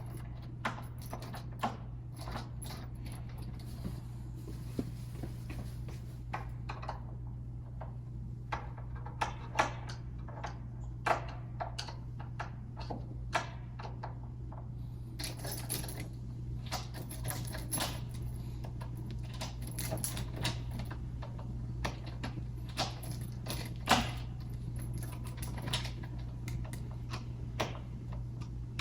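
Irregular small clicks and metallic taps of a door lockset and its screws being handled and adjusted by hand, over a steady low hum.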